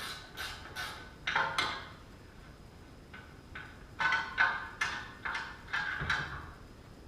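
Wrench work on a car's outer tie rod end nut: short metallic clicks about two or three a second at first, a louder pair about a second and a half in, then a louder run of clicks from about four seconds in.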